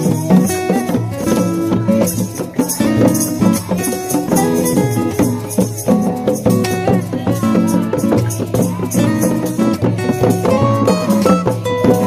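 Music with pitched instruments over a dense, fast percussive beat.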